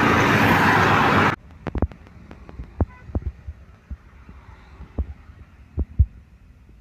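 Loud road noise of a passing bus that cuts off suddenly about a second and a half in. After it come only scattered low thumps and knocks.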